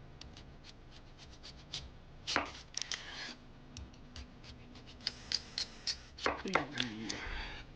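Kitchen knife cutting a kohlrabi on a cutting board: a run of short clicks as the blade meets the board, with two longer slicing strokes, about two and six seconds in.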